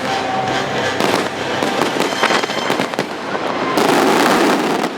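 Fireworks show finale: a dense, continuous barrage of bursts and crackling shells, loud throughout.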